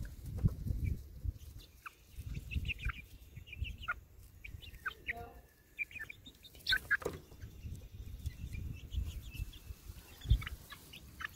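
Young chickens, chicks about a month old, peeping and chirping in short high calls scattered throughout while they peck at food on the grass. Low rumbling on the microphone runs underneath, with a thump about ten seconds in.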